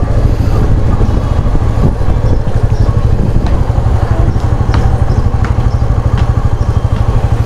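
Motorcycle engine running while the bike rides through busy street traffic, with a heavy steady low rumble and a few short clicks.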